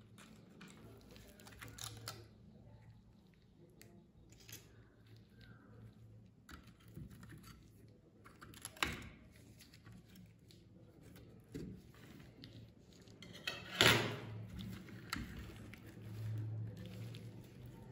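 Metal tweezers picking and scraping dried mud off a die-cast model car: faint scattered clicks and scratches, with two louder scrapes about nine and fourteen seconds in.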